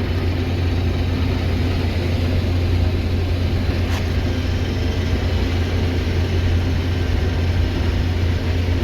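Combine harvester running steadily while harvesting soybeans: a constant engine and threshing drone with a strong low hum.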